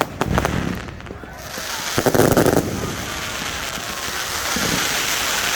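Fireworks going off close by: a few sharp bangs at the start, then a dense wash of crackling and hissing from about a second and a half in, loudest around two seconds in.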